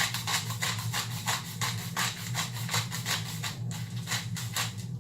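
Pepper mill grinding black pepper: a quick, even run of scratchy grinding strokes, several a second, that stops just before the end.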